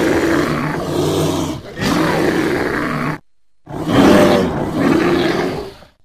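Sound-designed giant ground sloth (Megatherium) roars built from bear, moose and library monster recordings: two long, deep roars, the first already under way and the second starting about halfway through after a short silence.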